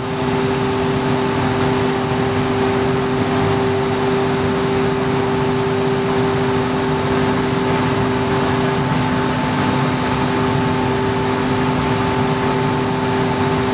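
Steady drone of distillery plant machinery: an even mechanical rush with a few constant humming tones.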